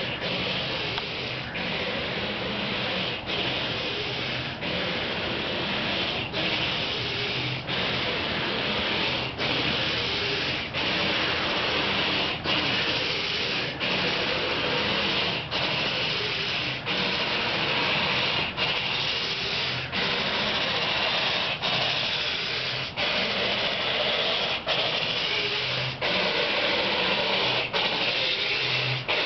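Car windshield wipers sweeping over a dry windshield, the blades dragging and screeching on the glass. The scrape is continuous, with a brief break about every second and a half as the blades reverse.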